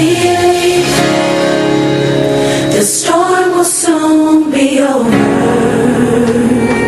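Recorded gospel music: sung vocals held over an instrumental backing.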